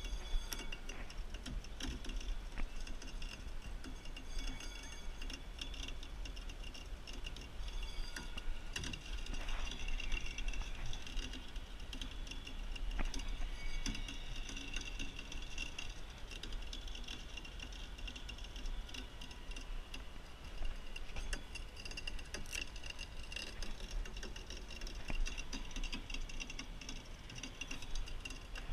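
Small motorboat under way at trolling speed: a steady low engine hum, with light rattling and scattered ticks from gear on board.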